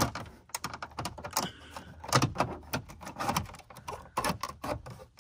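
Plastic dash trim panel being handled and fitted into place: a string of irregular plastic clicks and knocks with light scraping between them.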